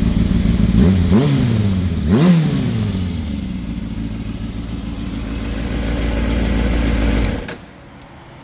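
Kawasaki ZX-6R 636's inline-four engine through a Laser aftermarket exhaust, idling and blipped twice in quick revs about one and two seconds in. It settles back to idle and cuts off suddenly about seven seconds in as it is switched off.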